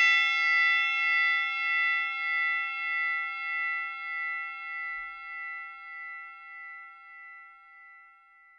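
A single struck bell-like metal tone with many ringing overtones, slowly fading away over about eight seconds with a wavering pulse.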